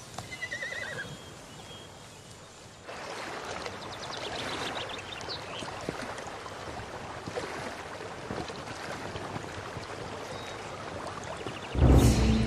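A horse whinnies briefly about half a second in, then water lapping at a lakeshore with faint bird chirps over it. Near the end a sudden loud hit sounds as music starts.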